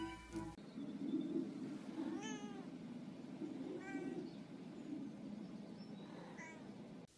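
Domestic cat meowing three times, about two, four and six seconds in; the first call falls in pitch. Underneath is a steady low rumbling noise, and a snatch of music cuts off within the first second.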